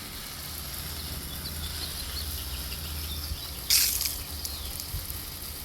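Water spraying from a garden hose: a steady hiss, with a louder gush of spray for about half a second near the middle.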